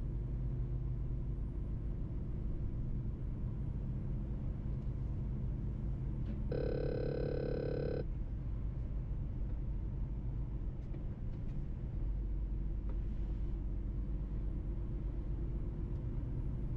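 Mercedes-Benz truck's diesel engine and road noise as a steady low hum while driving. About halfway through, a held tone made of several pitches sounds for about a second and a half, then stops suddenly.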